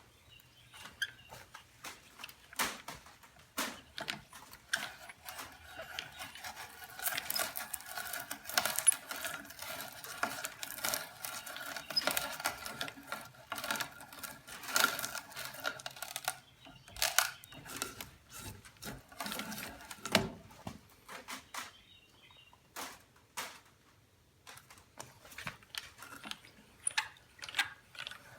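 Hand brace turning an adjustable (expansive) bit that bores into wood: a rasping cut broken up by irregular clicks and knocks. The cutting runs steadier for a stretch in the middle, then thins to scattered knocks with a short lull.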